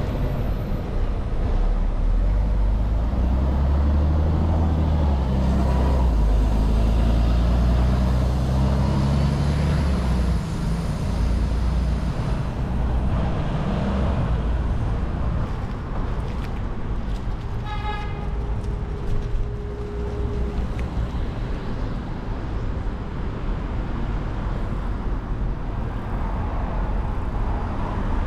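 City street traffic heard from a bicycle riding along a roadside bike path. A large vehicle's engine rumbles loudly and rises in pitch through the first ten seconds or so, then steadier traffic noise follows. A short car-horn toot sounds about two-thirds of the way through.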